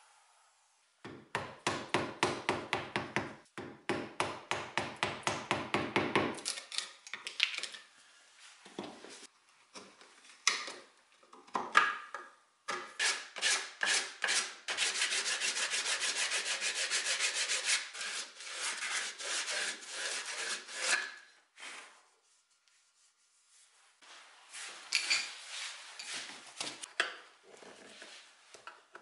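Hand-sanding the corner joint of a wooden chair frame with a sanding sponge: runs of quick back-and-forth rubbing strokes with short pauses between them. Near the end there is lighter scraping as a chisel works under old faux leather on a seat frame.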